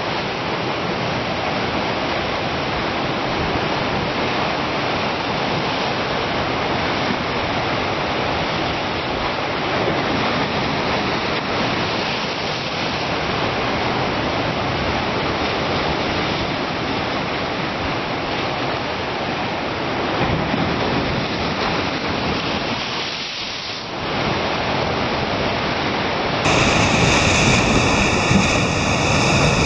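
Ocean surf breaking and foaming over rocks along a rocky shoreline: a steady rush of water with a brief lull about 23 seconds in. Near the end the sound switches abruptly to louder surf with several steady high-pitched tones over it.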